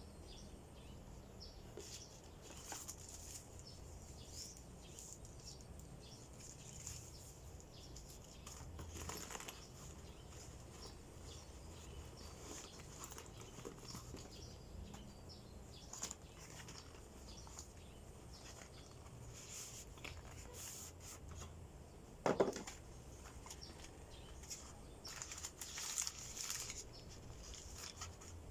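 Faint rustling and crinkling of packaging being handled, with scattered small clicks and one louder knock about three quarters of the way through.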